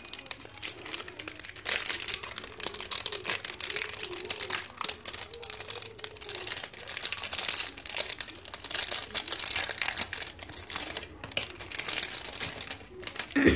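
Crinkly plastic wrapper of a Nestlé Munch Nuts chocolate bar being torn open and handled, with dense, irregular crackling as the bars are pulled out.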